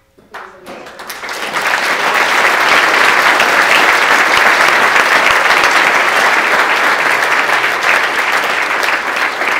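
Audience applauding, building up over the first second or two into loud, steady clapping.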